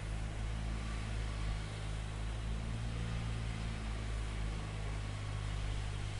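Steady low hum of a running engine or heavy machinery, with no change.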